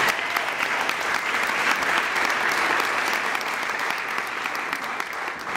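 An audience applauding, a dense steady clapping that eases off near the end.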